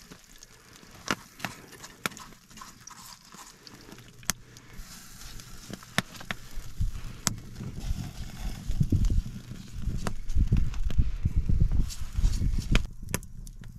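Wood fire crackling, with scattered sharp pops every second or so, over a low rumble.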